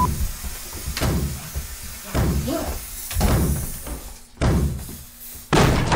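A series of about five heavy thumps with an echoing tail, roughly a second apart, the last one near the end the loudest.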